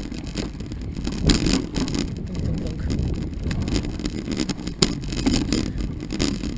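Knobby-tyred mountain bike riding down a dirt forest singletrack: a steady low rumble of tyres rolling on the trail, with rattles and sharp knocks as the bike jolts over bumps, the loudest about a second in and again near the end.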